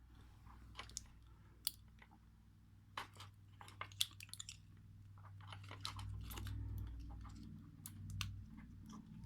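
Scattered small metallic clicks and taps as an ASSA 600 lock cylinder is handled and taken apart with small tools, over a low steady hum.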